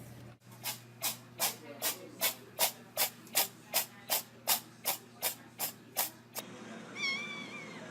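About fifteen short, evenly spaced hissing sounds, a little over two a second, that stop abruptly, followed about seven seconds in by one short high-pitched call that bends in pitch.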